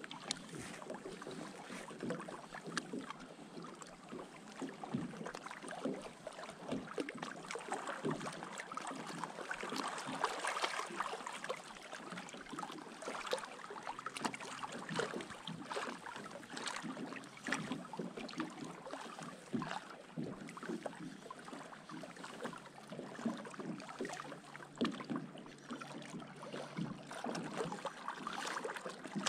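Small waves lapping and light wind on the microphone, with many small scattered clicks and knocks; the water sound swells a little about ten seconds in.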